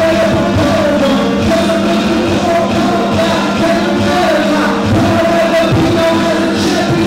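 Music with a singing voice: long held, slightly wavering notes over sustained chords and a steady low tone.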